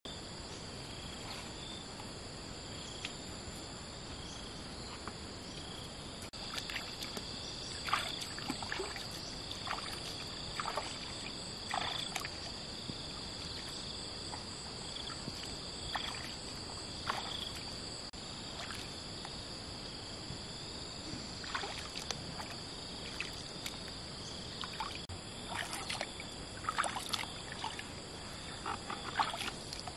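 Steady high-pitched insect chorus, with irregular short splashes from about eight seconds on as a person wades through shallow water.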